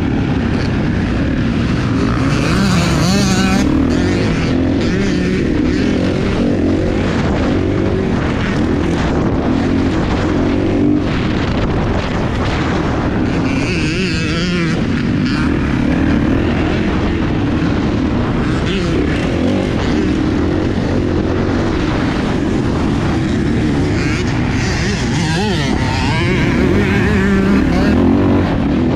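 Kawasaki motocross bike engine running hard around a dirt track, the revs rising and falling over and over as the throttle opens and closes.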